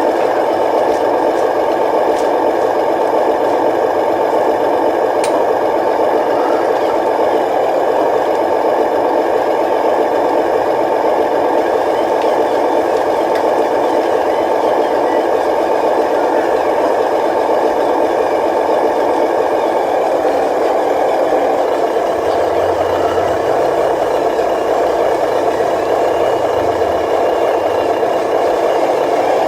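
Radio-controlled model construction machinery running: a steady mechanical whir with rattling, and a low rumble that joins about two-thirds of the way in.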